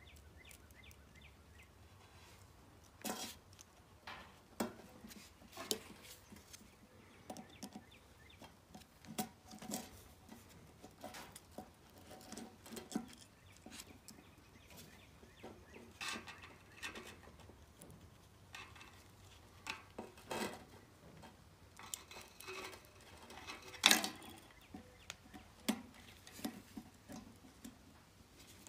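Scattered small clicks, taps and rustles of hands and a screwdriver working the wires and terminal screws of a replacement 110-volt plug, with one sharper click about three-quarters of the way through, over a faint low hum.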